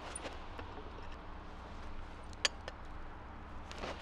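Light metallic clicks and a clink as the red-hot steel hammer head is turned on the anvil face, the sharpest about two and a half seconds in, over a steady low hum.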